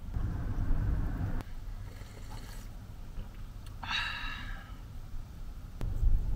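Car running on the road, a low engine and road rumble that changes abruptly between short clips. About four seconds in, a brief high-pitched sound with several overtones.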